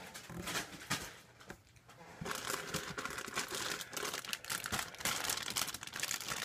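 Clear plastic bag of model-kit runners crinkling as it is lifted out and handled. There is a short lull about a second and a half in, then the crinkling runs on steadily and more densely.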